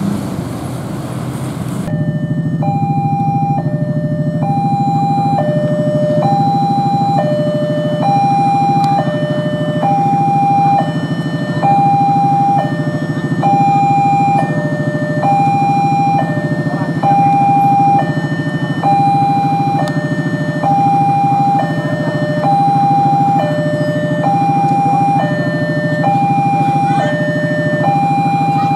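Railway level-crossing warning alarm starting about two seconds in: an electronic two-tone signal alternating high and low about once a second, repeating steadily over a low hum. It signals that a train is approaching the crossing.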